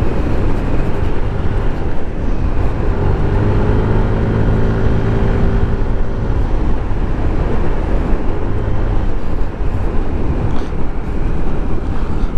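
Motorcycle running on the road at speed, with a steady rush of road noise. A few seconds in, an engine note swells up and eases off again.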